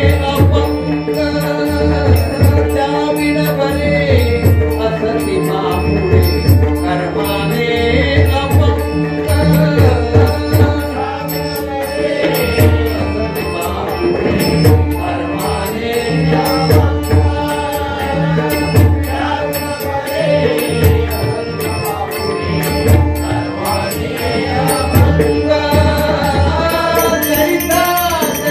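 Live devotional bhajan singing: a man chanting and singing the lead line over a steady held harmonium-like drone, with low hand-drum strokes and small cymbals striking in a steady rhythm.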